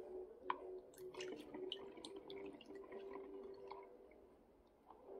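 Faint, irregular drips of liquid falling from a mesh strainer into the bowl beneath it, small plinks at uneven intervals that thin out toward the end.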